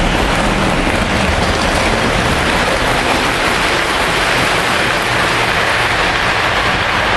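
Lionel O gauge model trains running on the layout's track: a steady, even rushing noise with no breaks.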